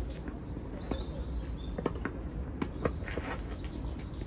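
Tennis rally: a few sharp pops of a ball struck by rackets and bouncing, roughly a second apart. Small birds chirp over it.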